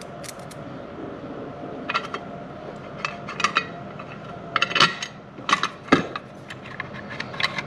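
Small metal parts, screws and hardware, clinking and clicking as they are handled, with scattered sharp clicks in short clusters.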